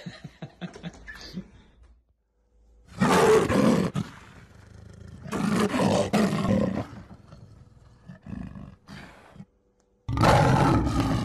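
Three loud, rough animal roars of about a second or so each, coming about three seconds in, at about five and a half seconds, and near the end. Each one starts and stops abruptly.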